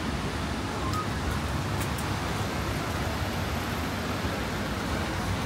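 Steady hiss of rain mixed with the noise of road traffic.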